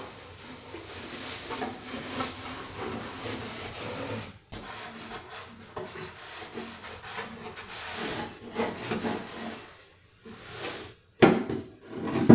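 Damp cloth wiping down a bare wooden nightstand in repeated rubbing strokes. Near the end come a few louder knocks from the furniture being handled.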